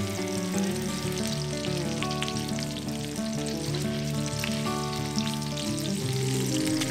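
Minced-meat patties frying in hot fat in a nonstick pan: a steady sizzle with fine crackling, under soft background music.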